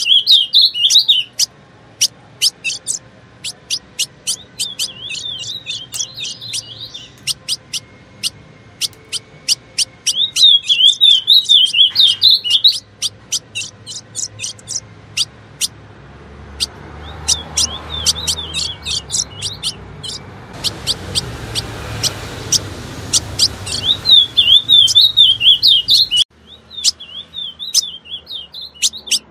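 Female ultramarine grosbeak (azulão) calling, the call a female uses to attract males: a steady series of sharp, high chip notes, broken by repeated bursts of rapid, high warbling twitter about two seconds long.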